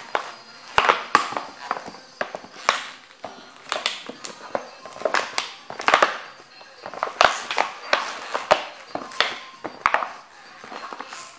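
Cofra Thermo boots stomping and treading on a painting, with the paint and board crunching and crackling under the soles in irregular steps. It gets quieter near the end.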